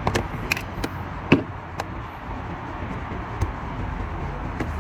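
A few sharp clicks and knocks of plastic parts being handled while getting at the cabin air filter behind the glove box, the loudest about a second and a half in, over a low steady hum.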